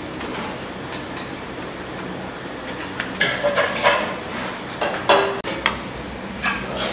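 Dishes and metal platters clinking and clattering against a steady background din, with a run of sharp clinks in the second half.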